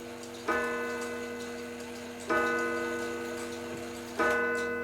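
Hour gong of a 1915 Seth Thomas Adamantine mantel clock struck three times, about two seconds apart. Each stroke leaves a deep, steady ringing tone that slowly fades into the next.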